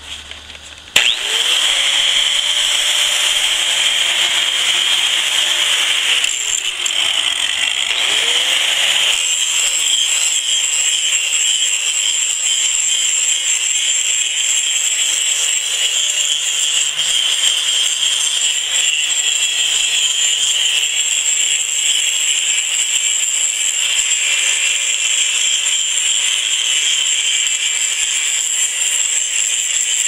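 Makita 4½-inch angle grinder with a general-purpose grinding disc, grinding heavy rust off old steel: a steady motor whine under a loud, high grinding hiss. It starts about a second in with the whine rising. Around six seconds in the motor's pitch sags under load, then climbs back up.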